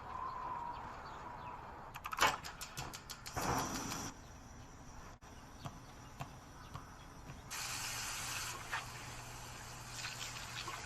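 Quiet everyday sound effects on an anime soundtrack: a quick run of clicks about two seconds in, a short rustle soon after, and about a second of steady hiss with a low hum near the middle.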